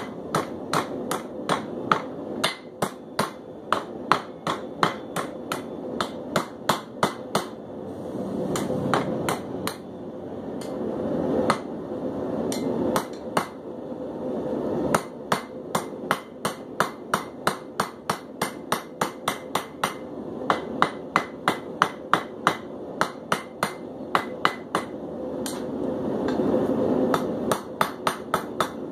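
Blacksmith's hammer striking hot steel on an anvil in quick runs of about three blows a second, bending a small forged hook. Between runs a steady rushing roar comes up, the propane forge's burner.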